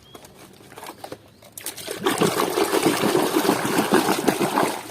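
Water running and splashing as a muddy toy is washed clean, starting about one and a half seconds in after a few faint clicks.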